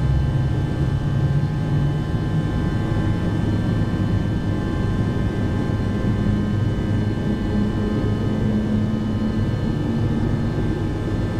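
Steady cockpit noise of an Avro RJ100 in the climb: a constant rush of airflow and drone from its four turbofan engines at climb power, with several thin steady whines above it.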